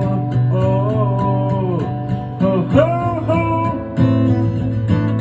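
Acoustic guitar strummed in a slow folk song, with a wavering melody line held over it that dies away about four seconds in, as the guitar carries on alone.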